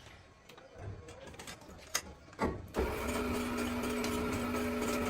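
A few scattered workshop knocks and clicks, then about two and a half seconds in a machine motor starts and runs with a steady pitched hum.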